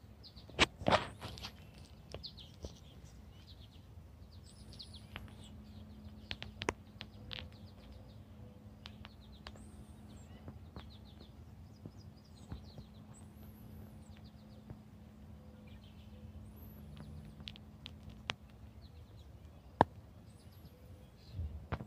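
Small birds chirping and trilling in the background, with many short, high calls, over a faint steady hum. A few sharp clicks or taps stand out, the loudest about a second in and near the end.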